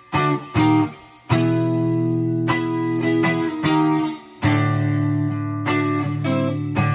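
Relic Telecaster electric guitar played clean: two short chord stabs, then strummed chords let ring, changing every second or so.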